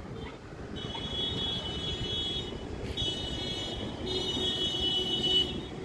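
Hair dryer blowing with a steady rush of air. A high whine cuts out and comes back three times, with a click about three seconds in.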